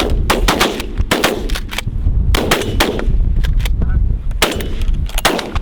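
Several shotguns firing a rapid, overlapping volley of about a dozen shots at geese. Heavy wind rumbles on the microphone underneath.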